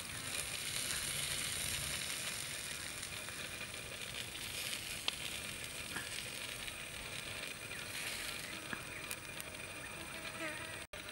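Outdoor ambience of a steady high buzzing hiss, with a few light ticks of a knife cutting fish on a leaf.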